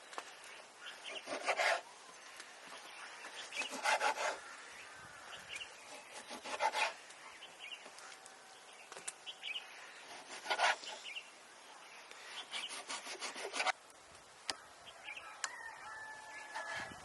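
Rasping scraping strokes, one every two to three seconds, with a faint bird chirp near the end.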